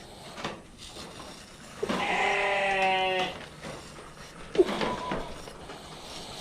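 A sheep bleating: one long wavering bleat about two seconds in, then a short sharp sound a couple of seconds later.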